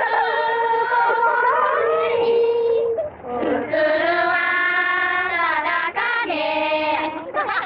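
Young women's voices singing a slow song without accompaniment, holding long notes with a short break about three seconds in. The sound is thin, with the top end cut off, as on an early film soundtrack.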